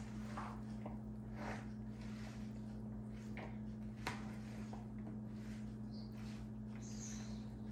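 Salad of dressed beans and chopped vegetables being tossed in a bowl with a silicone spatula: soft, irregular wet squishing and scraping, with one sharper click about four seconds in, over a steady low hum.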